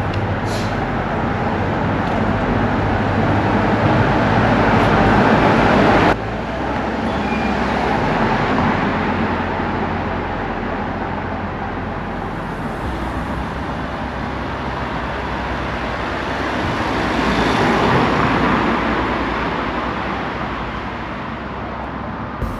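Road traffic: cars passing one after another, the noise swelling and fading. It drops off suddenly about six seconds in.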